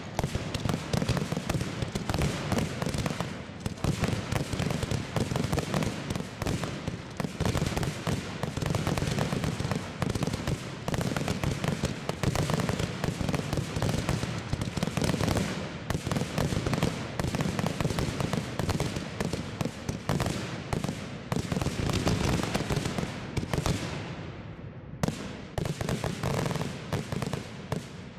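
Rapid barrage of aerial firework shells bursting, a dense run of overlapping bangs, many a second, that thins out over the last few seconds and stops.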